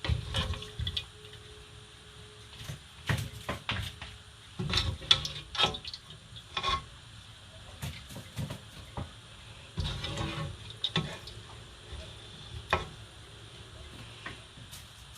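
Irregular knocks and clatter of food being squeezed and arranged into a crowded baking tray.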